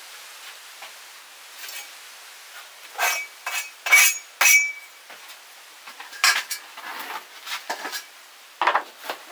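Metal kitchen utensils and vessels clinking and clattering against each other, a run of sharp, ringing clinks about three to four and a half seconds in, then more scattered clatter later.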